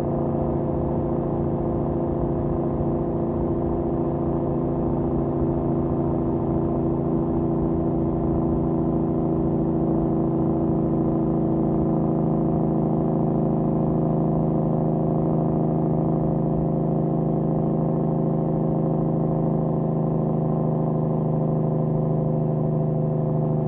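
Tractor-trailer's diesel engine brake (compression brake) working on a steep downhill grade: a loud, steady drone held at one constant engine speed.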